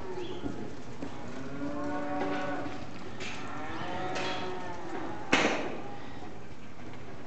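Cattle mooing: two long calls one after the other, from about a second and a half to nearly five seconds in. About five seconds in comes a short sharp noise, the loudest sound.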